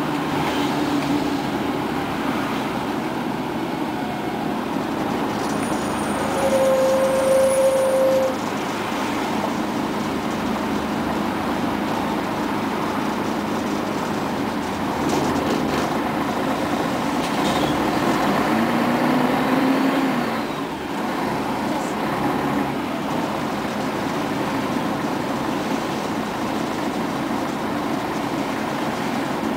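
Inside a 1996 Scania CN113ALB articulated city bus on the move: a steady rumble of the diesel engine and road noise. There is a short steady whine about seven seconds in, and another short rising whine around nineteen seconds.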